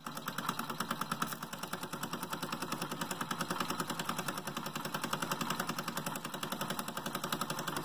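Mamod model steam traction engine running under steam, its single oscillating cylinder beating out a rapid, even chuff of about seven strokes a second as it drives a small toy workshop by a belt.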